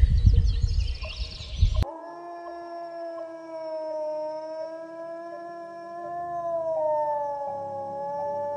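A loud, low rumbling noise cuts off abruptly about two seconds in. A gray wolf then gives one long, steady howl that wavers slightly in pitch and is still going at the end.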